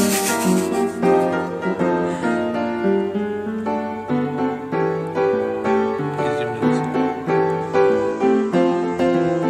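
Background piano music, a steady stream of notes at an even pace, with a brief noisy rush right at the start.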